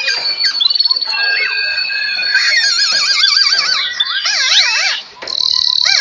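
Several caged songbirds singing at once: overlapping clear whistles, held high notes and warbling trills that wobble up and down in pitch. There is a brief lull about five seconds in.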